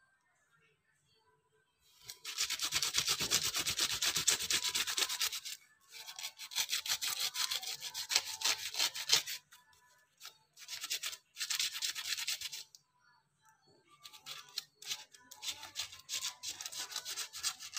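A brush scrubbed in quick back-and-forth strokes over a carved wooden knife sheath, working dark colour into the relief. It comes in four bouts of rapid rubbing, the first starting about two seconds in, with short pauses between them.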